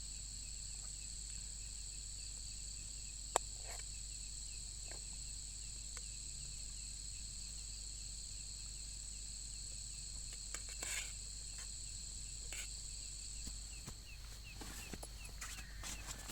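Steady insect chorus with a high, continuous ringing and a fast ticking pulse beneath it. A single sharp click sounds about three seconds in, a few faint knocks follow later, and the highest part of the chorus stops a couple of seconds before the end.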